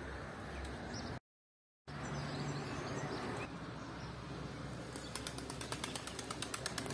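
Open-air background noise with small birds chirping in quick high-pitched runs, several chirps a second, in the second half. The sound drops out completely for a moment a little over a second in.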